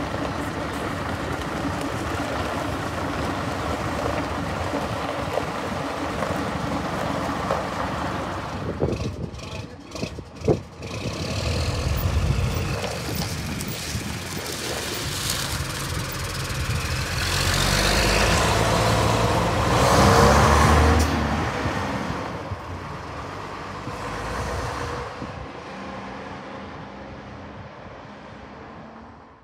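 Classic diesel buses running and pulling away, with a short sharp knock about a third of the way in; one bus passes close, its engine swelling to the loudest point about two-thirds through, then fading away.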